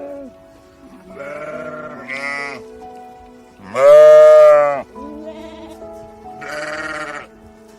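A farm animal bleating several times over steady background music. The loudest bleat, lasting about a second, comes about four seconds in.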